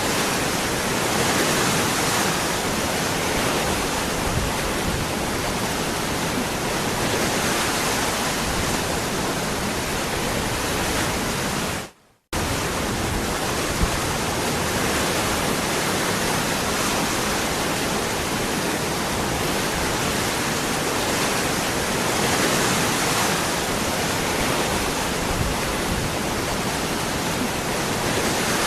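Waterfall rushing steadily, an even full-range roar of falling water. It cuts out abruptly for a split second partway through, then resumes unchanged.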